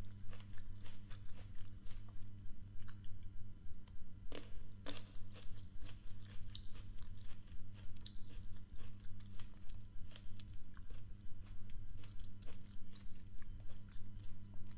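A person chewing fresh fruit close to the microphone: wet, crisp crunches and smacks several times a second, over a steady low hum.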